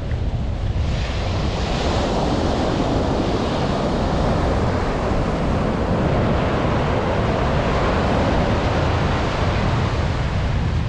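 Ocean surf breaking and washing up the beach, a wave's hiss swelling about a second in, with wind buffeting the microphone as a low rumble.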